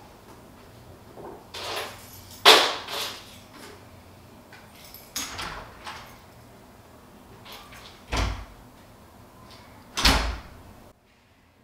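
A house door being handled and shut: a string of knocks and clatters, the loudest about two and a half seconds in, then two heavy thuds with a deep low boom about eight and ten seconds in. The sound cuts off abruptly just before the end.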